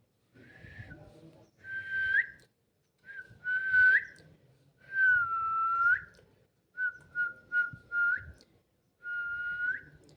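A person whistling a series of short notes at one steady pitch, most ending with a quick upward flick. There is a longer note in the middle and a quick run of four short whistles about two-thirds of the way through.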